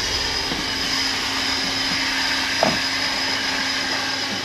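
Leaking water pump, a steady hiss of water spraying from the leak with a steady low hum running alongside.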